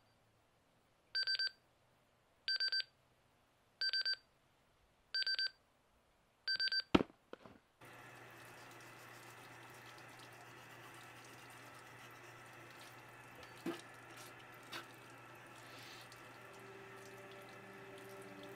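Nelsonic digital alarm clock beeping in five short bursts of rapid beeps, about one burst every 1.3 seconds, ended by a sharp click. Then a bathroom tap runs steadily and quietly, with a low hum under it.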